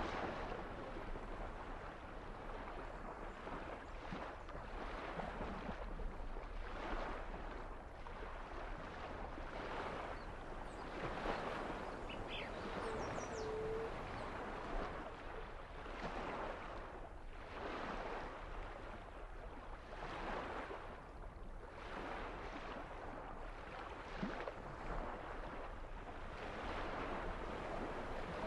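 Water washing in repeated surges that swell and fade every second or two.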